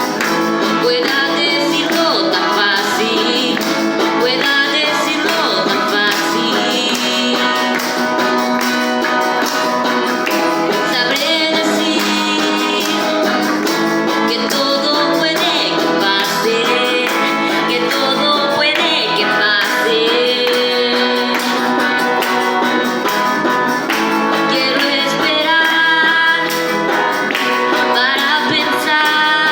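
Live performance of a song: a singing voice with guitar accompaniment, playing steadily throughout.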